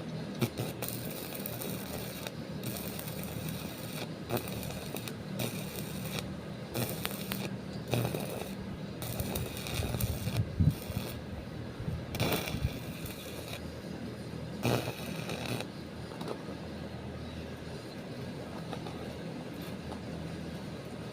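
Irregular scraping and clicking of objects being handled in a hand repair, heaviest in the middle and dying away after about 16 s, over a steady low hum.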